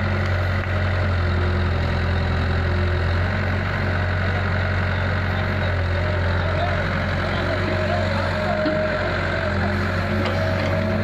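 Diesel engines of a Kato HD250 excavator and an Eicher tractor running steadily, with a deep, even hum. A steady whine grows stronger from about halfway through, as the excavator's hydraulics lift its boom and a bucket of soil.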